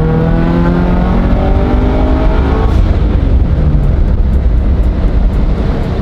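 Turbocharged Scion FR-S's 2.0-litre flat-four engine revving hard under acceleration, its note climbing in pitch for the first two and a half seconds. The note then fades into a loud, steady rumbling noise.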